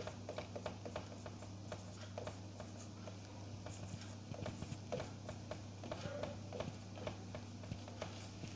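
Marker pen writing on a whiteboard: faint, irregular taps and scratches of the tip as letters and numbers are formed, over a steady low hum.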